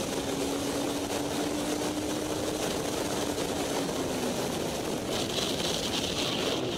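Steady wind rush and engine drone from a motorcycle riding at highway speed, picked up by its on-board camera. A faint steady tone fades out about four seconds in, and a brighter hiss joins about five seconds in.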